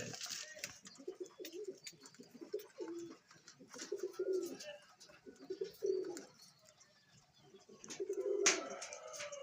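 Pigeons cooing in a loft, several low hooting phrases one after another, with a few faint higher chirps from smaller birds.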